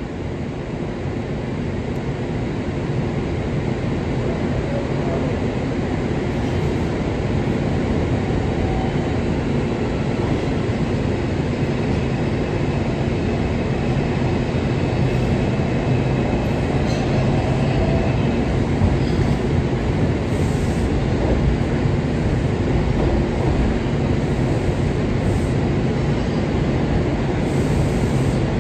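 R142 subway train running, heard from inside the car: a steady rumble of wheels and running gear that grows louder over the first several seconds as the train picks up speed leaving the station. A faint high wheel squeal comes in about halfway through.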